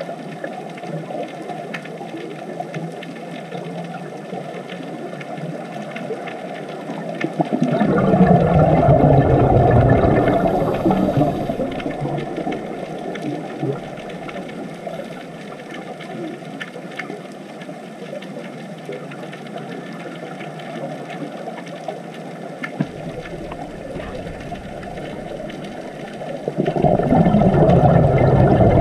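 Underwater recording: a steady muffled hiss, with two loud bursts of bubbling, one about eight seconds in and one near the end, typical of a scuba diver exhaling through a regulator.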